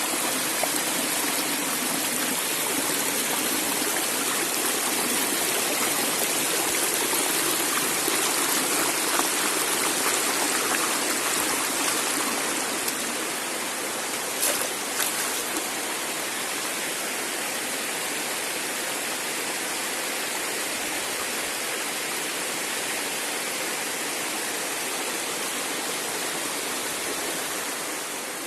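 Rushing water running steadily, easing slightly about halfway through, with a few brief ticks near the middle.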